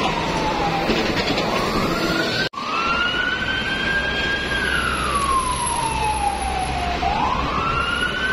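Emergency vehicle siren wailing, its pitch sweeping slowly down and up over a few seconds at a time, over a low rumble of street traffic. The sound breaks off for an instant about two and a half seconds in.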